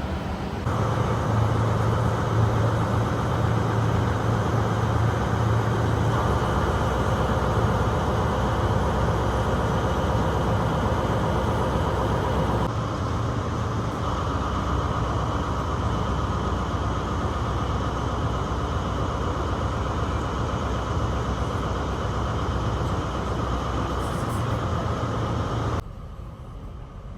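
Steady rumble and low hum of a passenger train, with abrupt changes in level about a second in, around the middle and near the end, where the footage cuts between shots.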